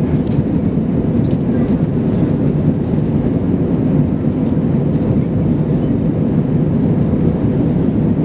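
Steady low rumble of an Airbus A320 in flight, heard inside the passenger cabin: engine and airflow noise, even and unbroken.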